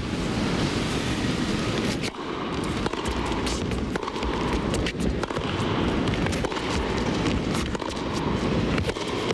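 Tennis serve followed by a baseline rally: sharp racket-on-ball pops about a second apart, starting about two seconds in, over steady low background noise from the indoor arena.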